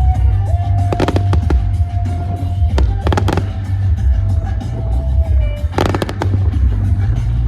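Fireworks bursting in three clusters of sharp cracks and bangs, about a second in, about three seconds in and about six seconds in, over loud music with a heavy bass and a long held note.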